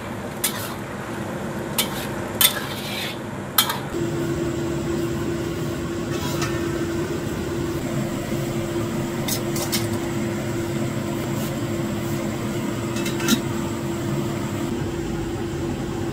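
Metal spatula clinking and scraping against a wok while pork in tomato sauce is stirred, with a few sharp clinks in the first few seconds. After about four seconds a steady hum and hiss of water boiling under a steaming rack on the stove takes over, with occasional clicks.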